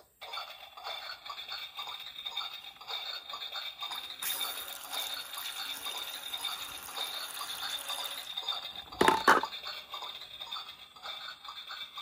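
Water from a battery-powered toy sink's faucet pouring and splashing into its plastic basin for about four seconds in the middle, over a faint steady high tone. A loud sharp plastic knock comes a little after nine seconds.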